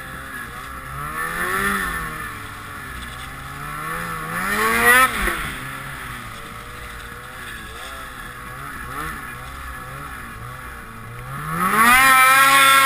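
Ski-Doo XRS snowmobile's 800 E-TEC two-stroke engine revving up and down under the throttle. It climbs to a peak about five seconds in and drops sharply, then near the end it is held at high revs, its loudest.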